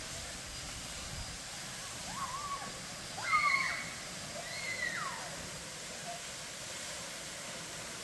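Steady rush of a waterfall and shallow stream. Over it, a few short calls that rise and fall in pitch come between about two and five seconds in, the loudest around three and a half seconds.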